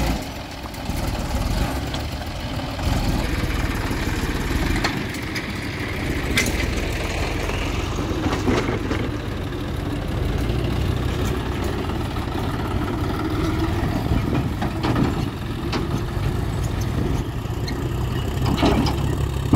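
Tractor diesel engine running steadily as it pulls an empty tipping trailer over rough, muddy ground, with a few knocks and rattles from the trailer.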